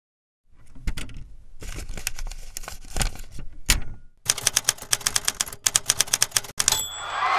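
Typewriter keys clacking, first in scattered strokes, then in a fast even run from about four seconds in, ending with a short high bell ring like a carriage-return bell.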